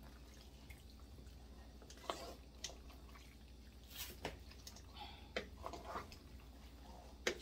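Wooden spoon tossing pasta in a thick sauce in a stainless steel pot: soft, wet squelches with scattered light knocks of the spoon against the pot, the sharpest one near the end.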